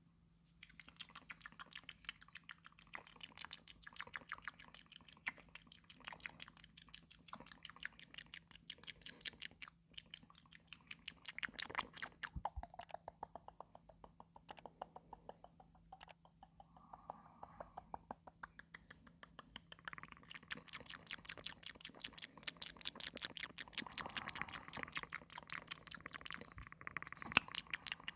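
Close-miked ASMR mouth sounds: a rapid, continuous stream of wet mouth clicks and smacks, starting about a second in.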